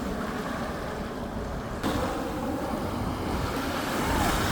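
Sea surf washing onto a beach, with wind rumbling on the microphone; a wave washes in about two seconds in, and the wind picks up near the end.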